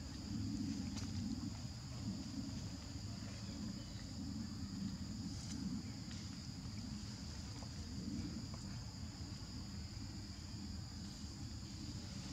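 Steady, high-pitched buzzing of an insect chorus over a low rumble.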